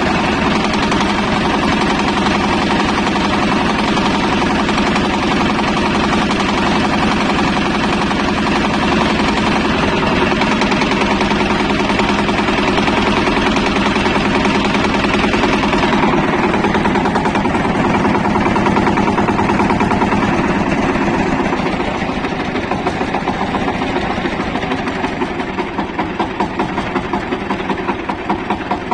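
Shifeng SF138 engine running with a knock that comes from inside the engine; the owner believes the ignition timing is correct. Past halfway it slows to a lower idle, where the separate firing beats come through clearly.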